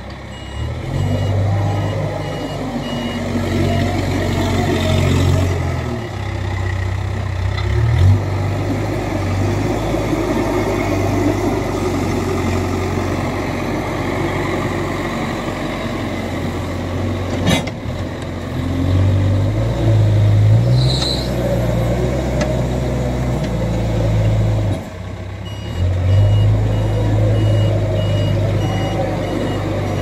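JCB backhoe loader's diesel engine working under load, its pitch and level rising and falling as the machine works. A reversing alarm beeps at the start and again over the last few seconds, and there is a single sharp knock a little past halfway.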